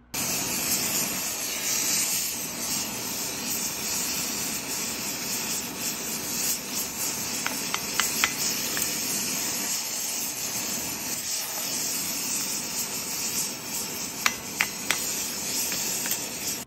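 Gas torch flame hissing steadily while a hot knife tang is burned into a wooden handle. A few sharp clicks come about halfway through and again near the end.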